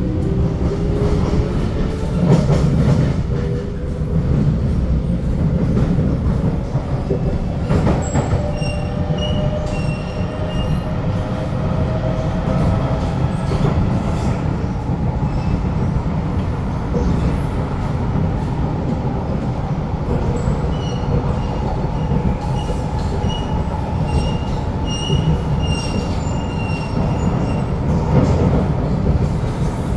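SMRT C751B metro train running, heard from inside the car. A motor whine rises in pitch over the first dozen seconds as the train gathers speed, over a steady wheel-and-track rumble. Short high wheel squeals come twice, about a third of the way in and again in the last third.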